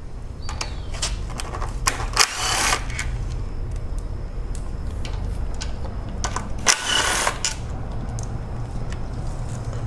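Cordless ratchet running in two short bursts, about two and seven seconds in, spinning out bolts from a 2.4 Tigershark engine's timing cover, with scattered metal clicks of the sockets and bolts over a steady low hum.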